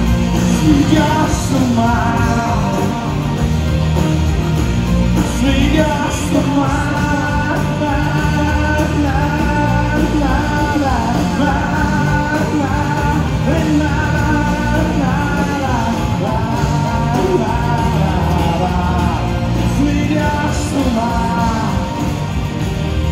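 Live pop-rock band playing loud and steady: acoustic and electric guitars, bass guitar and drums, with a wordless sung melody over them, in a large hall.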